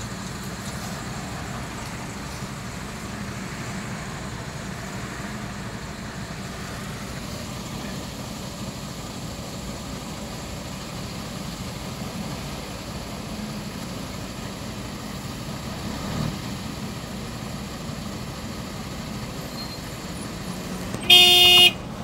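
Steady traffic and idling-engine noise heard from inside a car's cabin. About a second before the end, a car horn honks once, loud, for about half a second.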